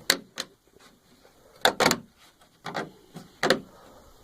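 Metal clicks and knocks of a Ford truck door lock cylinder and its metal retaining clip being pushed back into the door and wiggled into place: a series of sharp, irregular clicks, some in quick pairs, the loudest near the start, in the middle and near the end.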